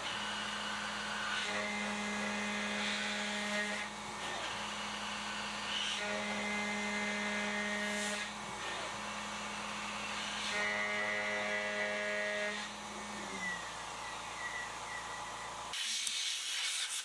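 Lemontart CNC mill facing an aluminium block: the spindle runs with a steady hum, and three stretches of cutting, each about two seconds long, add higher tones on top. About 13 seconds in, the spindle winds down with a falling pitch.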